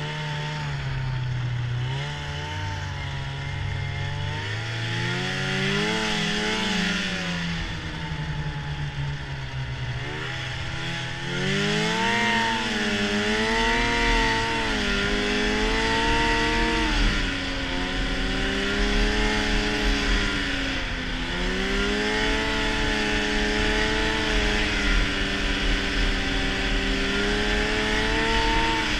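Arctic Cat snowmobile engine under way, its pitch rising and falling with the throttle. It climbs about a dozen seconds in and then holds higher with a couple of brief dips. A steady rushing noise runs under it.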